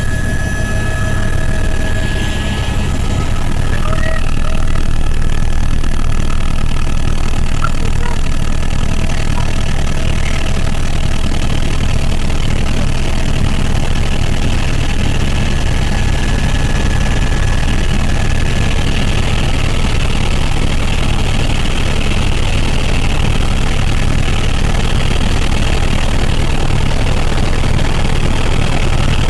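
Helicopter in flight: steady, loud rotor and engine noise, a deep rumble with a few faint steady whining tones above it.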